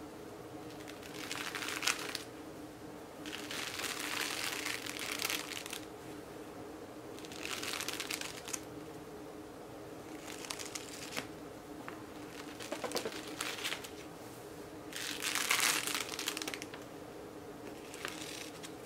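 Paper book pages rustling as they are fanned and flexed apart by hand, in about five bursts, breaking apart pages whose edges have just been spray-painted so they don't stick or tear.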